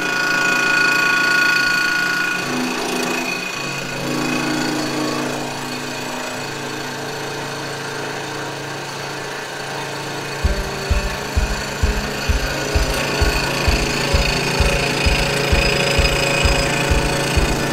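Vertical milling machine running, its end mill cutting a slot into a steel plate: a steady whine with a rattling chatter. About ten seconds in, background music with a steady thumping beat comes in over it.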